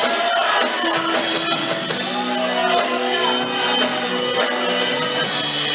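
A band playing a contemporary Christian worship song, with guitar and singing.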